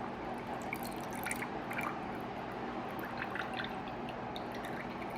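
Liquid from a jar of garlic cloves being poured off into a small bowl, trickling and dripping, with a few faint ticks.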